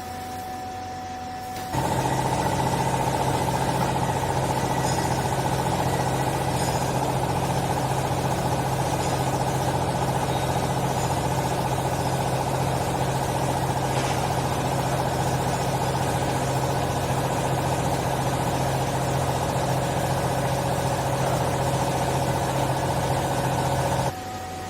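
TCM-LP30 vertical hydraulic baler's power unit, an electric motor and hydraulic pump, running steadily with a constant hum and whine. It switches on about two seconds in and cuts off suddenly near the end.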